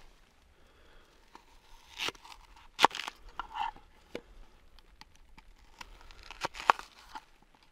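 A knife cutting an onion on a wooden plate and the dry onion skin being peeled off: irregular crisp crunches and tearing sounds, the sharpest about three seconds in and again near the end.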